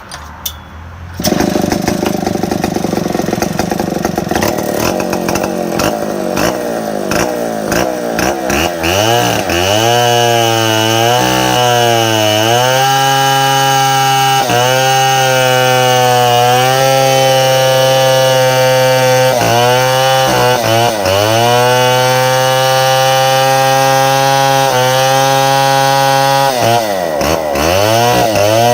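Stihl 070 two-stroke chainsaw running loud from about a second in, then revved up to high revs and held there several times, with brief drops in pitch between.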